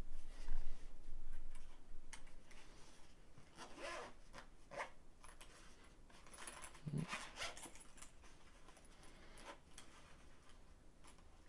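Packaging and contents being handled during an unboxing: scattered short rustles, scrapes and small clicks, busier in the first few seconds and fainter toward the end.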